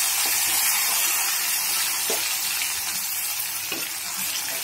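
Grated raw mango and carrot sizzling as they hit hot groundnut-oil tempering in a steel pan and are stirred with a steel spoon: a steady frying hiss, with two soft knocks about two and nearly four seconds in.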